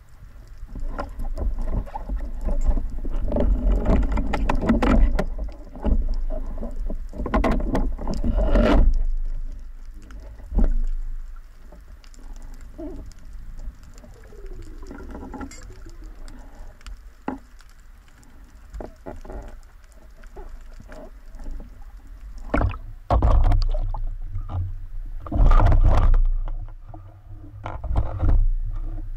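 Sea water splashing and sloshing in irregular bursts, with a low rumble of wind on the microphone; busiest over the first several seconds and again near the end.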